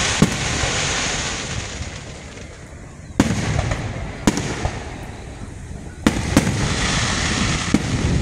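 Aerial fireworks shells bursting overhead: about six sharp bangs, the loudest about three seconds in, over a continuous crackle from the bursting stars.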